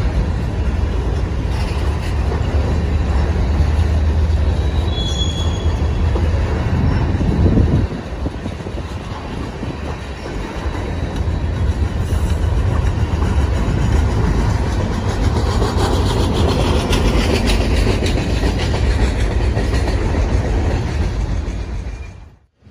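A freight train's cars (covered hoppers, gondolas and boxcars) rolling past on the track: a steady, heavy rumble of steel wheels on rail. It drops out abruptly just before the end.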